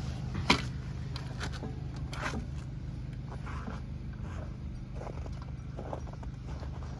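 Honda EU2200i inverter generator running steadily at a low hum, set to eco. Scattered clicks and crunches sit on top, the loudest a sharp click about half a second in.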